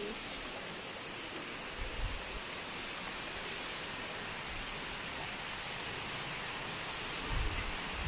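Steady outdoor rushing hiss of tropical forest ambience, with a thin high steady insect-like tone over it, and low bumps about two seconds in and again near the end.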